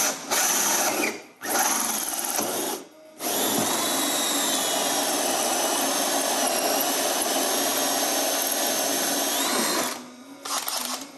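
Cordless drill working into a caravan's side panel: two short runs, then one long steady run of about seven seconds with a high whine that rises near the end before the drill stops.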